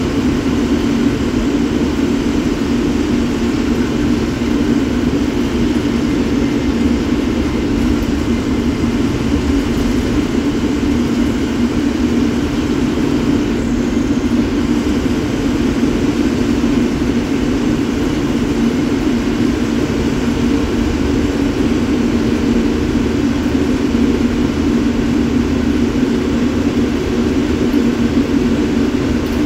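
BS3 state-transport bus's diesel engine running steadily at highway cruising speed, heard from inside the bus's cabin with road noise.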